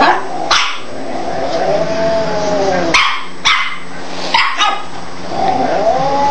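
A pet animal vocalising: two long wailing calls that rise and then fall in pitch, each lasting over a second, with several short, sharp, harsh bursts between them.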